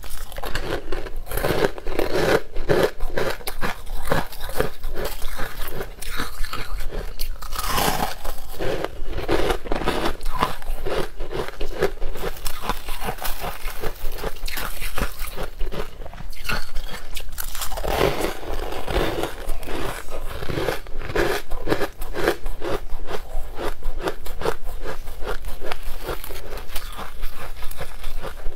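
Close-miked biting and chewing of crunchy frozen purple shaved ice, a dense run of crisp crunches and crackles one after another.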